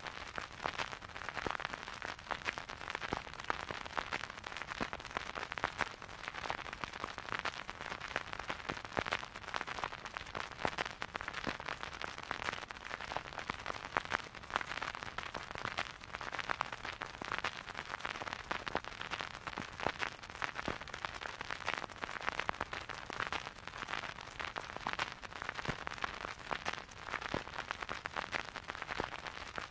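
Vinyl record surface noise picked up by a turntable stylus: a dense, steady crackle of small pops and clicks over a soft hiss, with no music.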